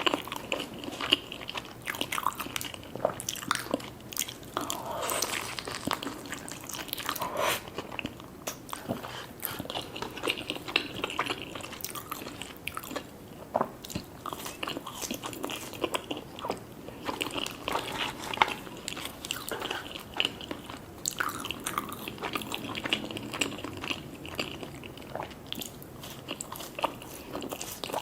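Close-miked crunchy bites and chewing of crispy fried chicken: irregular crackling crunches with mouth sounds between them.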